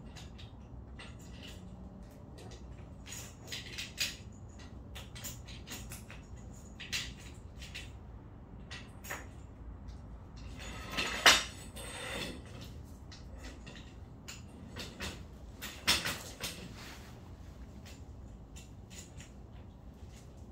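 Scattered clicks and light knocks of objects being handled and set down, with two louder knocks about eleven and sixteen seconds in.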